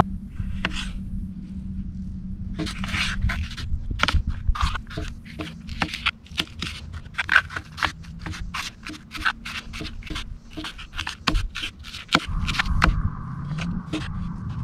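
Kitchen knife chopping vegetables on a plastic cutting board: repeated irregular sharp taps of the blade on the board, with short scraping slices through tomato and bell pepper.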